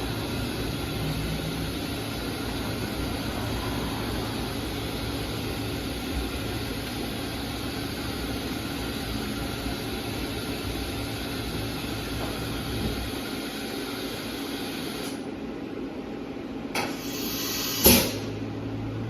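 Fadal 4020HT vertical machining center running with a steady mechanical whir and hum. Its noise drops away in two steps about thirteen and fifteen seconds in, and two short loud bursts follow near the end.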